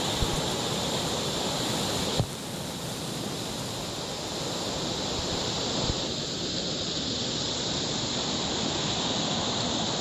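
Waterfall rushing: a steady wash of falling water. About two seconds in there is a click, and the sound drops slightly in level after it.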